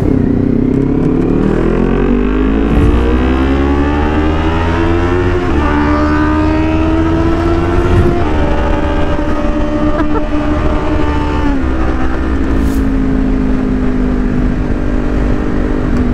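Kawasaki Ninja 400's parallel-twin engine pulling hard through the gears, its note rising in pitch and breaking at gear changes about five, eight and eleven seconds in, then holding a steady note. Wind rush on the on-bike microphone runs underneath.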